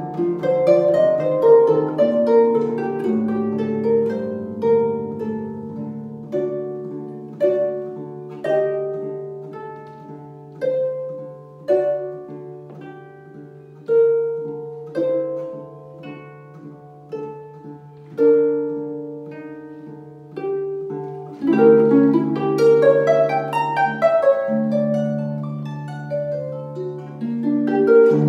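Concert harp played solo: plucked notes ringing and dying away, thinning to a quieter passage of spaced single notes in the middle, then louder, fuller chords and arpeggios from about three-quarters of the way through.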